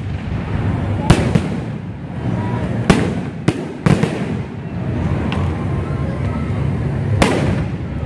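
Fireworks display: aerial shells bursting overhead with about six sharp bangs, the loudest about a second in and near three seconds in, over a steady background din.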